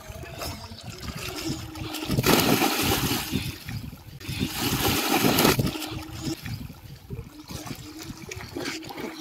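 Water splashing from children swimming, rising in two louder bursts of splashing about two and five seconds in, each lasting about a second.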